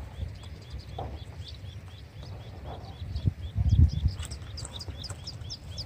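A small bird calling in a steady run of short, high chirps, about four a second. Low rumbling on the microphone comes and goes under it, loudest a little past halfway.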